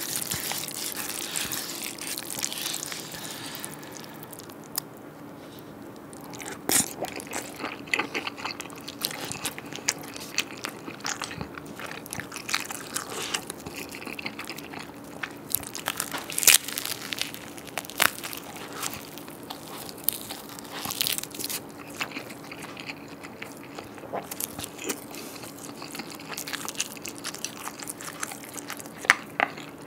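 Close-miked eating: cream carbonara buldak noodles eaten from a paper cup, then crisp bites into a seaweed-wrapped triangle kimbap and chewing, with many sharp crunchy clicks. A faint steady hum runs underneath.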